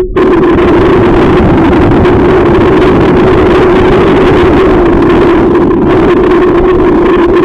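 Small motor on an inflatable boat running at a steady hum, heavily buffeted by strong wind on the microphone.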